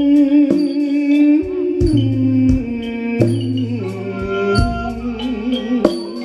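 Likay stage music: a held, wavering melody line over a steady drum beat of about three strokes every two seconds.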